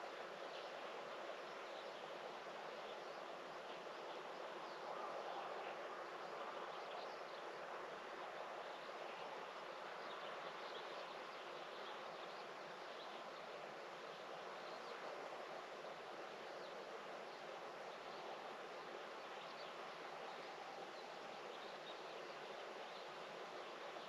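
Quiet outdoor morning ambience: a steady, even hiss with faint, short high chirps scattered through it.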